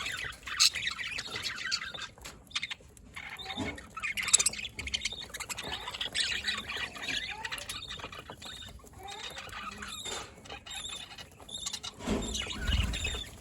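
Budgies chirping and chattering: many quick warbling chirps and squawks overlapping throughout. Near the end there is a brief low rumble.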